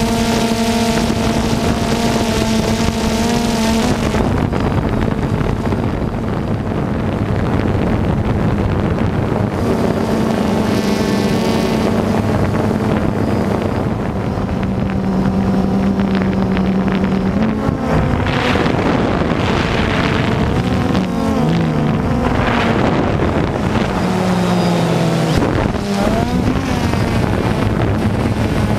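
DJI Phantom quadcopter's motors and propellers humming steadily as it flies, heard from the camera on the drone. The pitch holds, then steps and wavers as the motors change speed, especially in the second half, over wind noise on the microphone.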